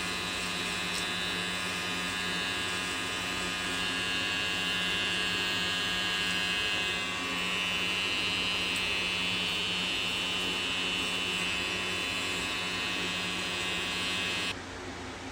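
Electric hair clippers running with a steady buzz, the tone shifting slightly about halfway through, then switched off shortly before the end.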